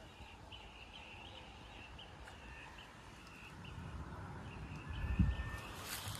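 A bird calling in short, faint, high chirps repeated every few tenths of a second, over a low outdoor rumble. A few dull thuds come near the end.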